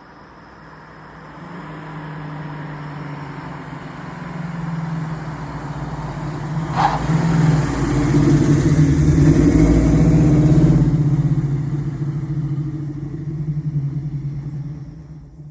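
The V8 engine of a 1971 Ford Mustang Mach 1 running. It grows steadily louder to a peak just past the middle, then eases off somewhat before cutting off suddenly.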